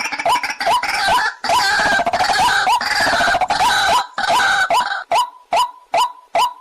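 Waterhen calls: a short call note repeated about two and a half times a second. For a few seconds in the middle it thickens into a harsh, dense chorus of calling, then drops back to single notes near the end.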